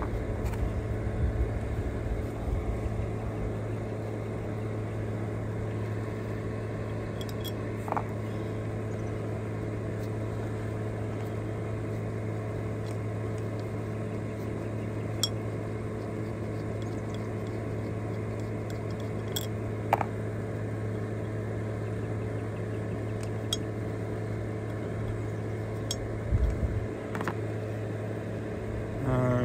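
Portable battery-powered fan running with a steady hum. Scattered sharp metal clicks and taps come from the parts of a hydraulic cab jack pump being handled and unscrewed.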